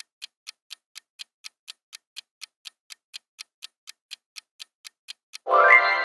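Quiz countdown timer ticking steadily, about four ticks a second. About five and a half seconds in, a loud pitched answer-reveal sound effect sounds, rising briefly and then fading out.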